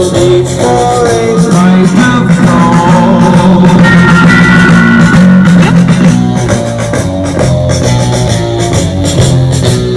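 Rock song with singing, guitar and drums playing loudly through a 2016 Indian motorcycle's bagger stereo: Phoenix Gold 6x9 speakers and Orion horn tweeters in the saddlebags, driven by a Phoenix Gold Bluetooth amplifier.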